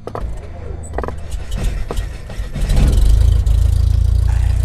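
Sound effects for an animated intro: a few sharp hits in the first two seconds, then a deep, steady low drone swells in about halfway and holds.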